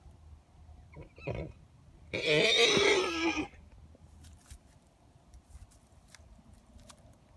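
Gelding horses making unusual calls: a short call about a second in, then a loud, pitched call lasting about a second and a half, followed by a few faint clicks.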